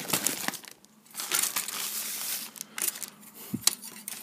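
Clear plastic bag crinkling and rustling as a kit part is handled in it, with a short pause about a second in and a few sharp clicks later on.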